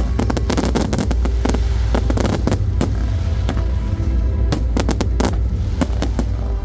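Fireworks display bursting and crackling: many sharp, irregular bangs and crackles in quick succession over a continuous low rumble, with music playing underneath.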